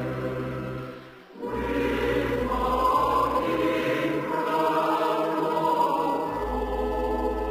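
Choral music: a choir singing slow, long-held chords. The sound dips briefly about a second in before a new chord comes in.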